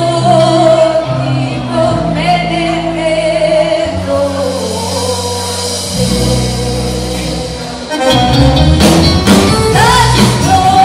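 A female singer with a live band (keyboards, electric guitar, bass guitar and drum kit) performing a Serbian folk song, holding long sung notes. About eight seconds in, the drums strike harder and the whole band gets louder.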